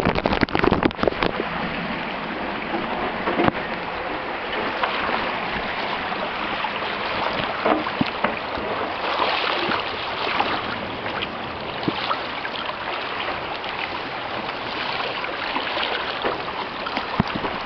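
Steady rush and splash of river water around a small dinghy under way, with a few knocks in the first second or so.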